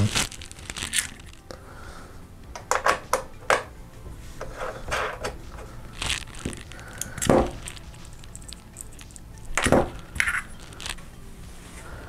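Hands threading thumb screws onto a CPU cooler block's spring-loaded mount: scattered light clicks and scrapes of metal and plastic parts being handled, with a couple of louder knocks.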